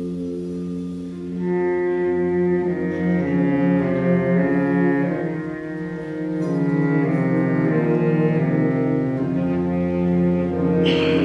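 Concert wind band playing slow, sustained full chords, swelling about a second and a half in, easing back in the middle and building again. A bright crash sounds near the end.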